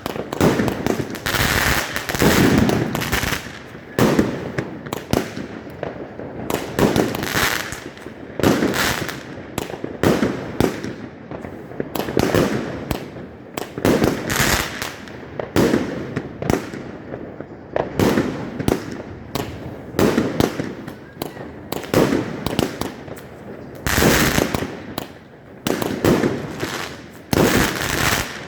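A 25-shot 30 mm fireworks cake firing shot after shot, roughly one every second, each a sharp report followed by a trailing burst.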